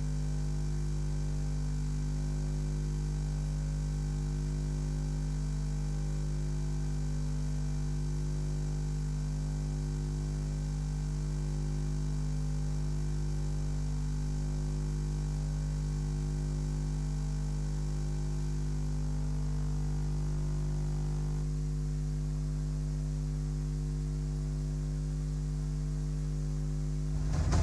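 Steady mains hum and buzz on the audio feed: a low hum with a stack of higher buzzing overtones and a faint hiss above. The buzz pattern shifts slightly about three quarters of the way through, and a loud sound cuts in abruptly at the very end.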